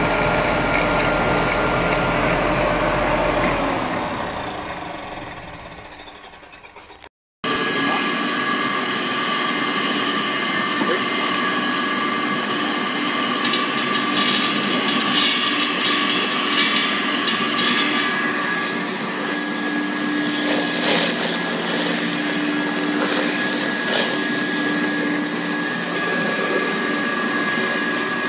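Colloid mill grinding peanuts into paste, its motor and rotor running with a steady whine and hum. The first mill winds down with a falling whine over a few seconds and goes quiet. After a break a second colloid mill runs steadily with held whining tones and some intermittent clatter.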